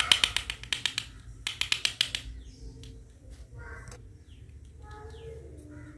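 Two quick rasping tears, in the first two seconds, as the two halves of a plastic toy fruit are pulled apart, typical of the hook-and-loop (Velcro) fastening on toy cutting food; a few faint clicks and rustles follow.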